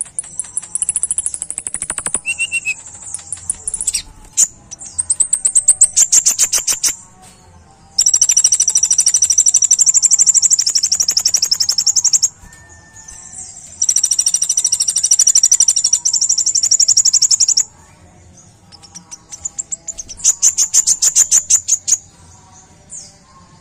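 Male Van Hasselt's sunbird (kolibri ninja) singing in bursts of sharp, very high rapid-fire trills. There are runs of quick staccato notes near the start and near the end, and two long unbroken trills of about four seconds each in the middle.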